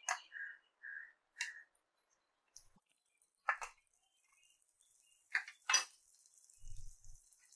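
A metal spoon clinks against a stainless steel pan as butter is scraped in, one clink ringing briefly, followed by a few more sharp clicks. From about halfway a faint, high hiss begins: the butter starting to melt and sizzle in the pan over a low flame.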